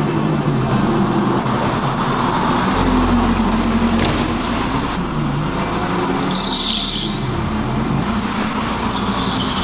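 Racing go-karts running around an indoor track, a steady mix of motor and tyre noise, with a short high squeal about six and a half seconds in.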